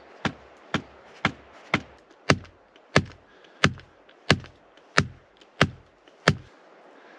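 An axe pounding the top of a peeled wooden stake to drive it into the ground: about eleven steady blows roughly half a second apart, getting louder after about two seconds, then stopping shortly before the end.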